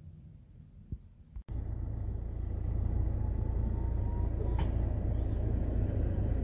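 Tram running with a steady low rumble that starts abruptly about a second and a half in, after a quiet stretch with a couple of small clicks. A faint thin whine glides slightly upward through the middle, ending in a short tick.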